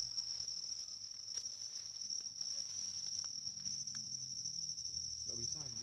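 Insects, crickets or cicadas, keeping up a steady, unbroken high-pitched trill, with a few faint ticks beneath.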